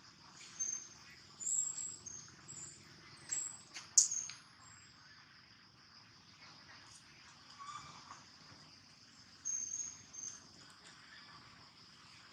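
Steady high insect drone, with a few short high-pitched chirps in the first few seconds and again near ten seconds, and one sharp click about four seconds in.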